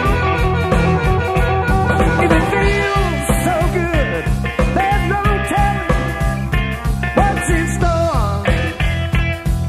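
Rock band music: bass and drums keep a steady beat while a lead instrument plays a line with bending notes.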